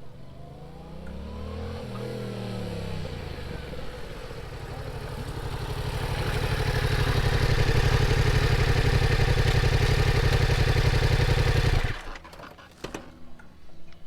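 Yamaha MT-07 parallel-twin motorcycle running through its stock exhaust on a flyby pass. Its engine note rises and falls over the first few seconds, then a steady drone grows louder for about eight seconds and cuts off suddenly about two seconds before the end, leaving a few faint clicks.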